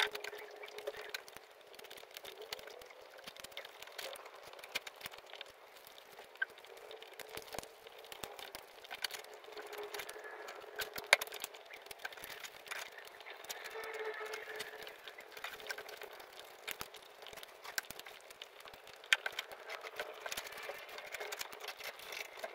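Close-up eating sounds: fingers pressing and squishing biryani rice into mutton curry gravy, with chewing and wet lip smacks. A stream of small sticky clicks runs throughout, with a couple of sharper ones standing out.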